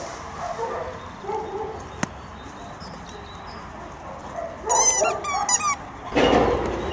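A dog barking in a quick series of short, high yips about two-thirds of the way through, followed by a louder, harsher burst near the end.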